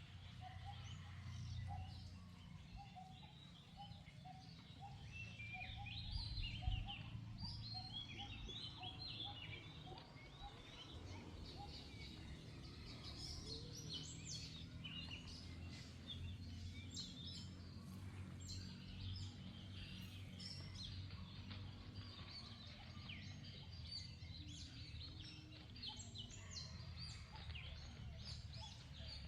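Birds chirping: many short high calls throughout, with an evenly repeated lower call in the first third, over a steady low rumble.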